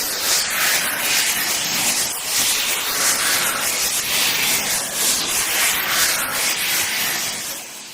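A continuous run of airy, hissing whooshes, one swell after another about once a second, which cuts off abruptly near the end.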